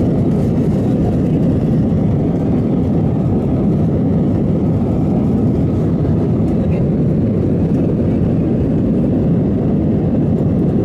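Cabin noise of an Airbus jet airliner in its initial climb after takeoff: a steady low roar of the engines and rushing air, with no change in level.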